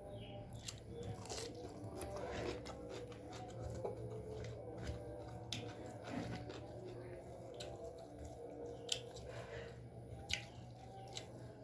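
Close-miked eating sounds of a person chewing a mouthful of nasi padang (rice with Padang dishes), with wet mouth noises and scattered sharp clicks of biting and crunching. A steady low hum runs underneath.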